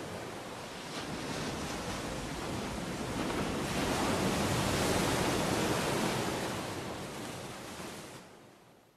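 Ocean surf breaking on a beach: a steady rush of waves that swells a few seconds in and fades out near the end.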